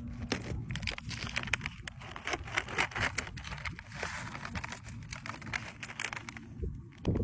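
Foil-laminate MRE pouch of dried cranberries crinkling and rustling as it is handled, tipped and shaken to pour the cranberries into a hand, a dense run of small crackles.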